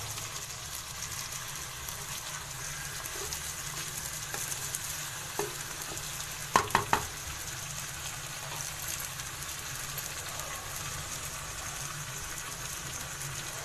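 Potatoes, chicken and green capsicum sizzling in hot oil in a non-stick pan as a spatula stirs them, with a steady frying hiss. About halfway through, three quick knocks against the pan.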